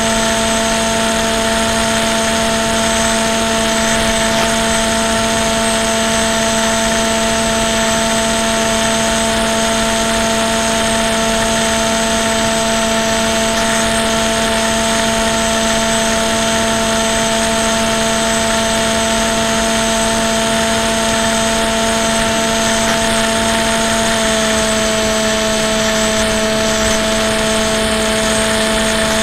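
Onboard sound of an FPV model plane in level flight: its motor and propeller give a steady whine of several held tones over an even hiss of airflow, the tones shifting slightly near the end.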